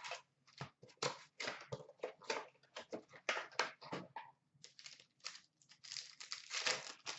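Foil wrappers of Upper Deck Artifacts hockey card packs being torn open and crinkled by hand: a string of short, irregular crackling rips.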